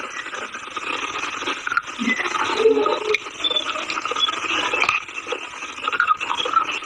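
Close-miked chewing of crunchy chalky material: a continuous gritty grinding and crackling.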